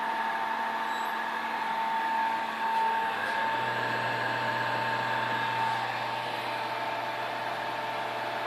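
CNC router running: a steady machine hum and whine over a hiss, with a lower hum coming in about three and a half seconds in.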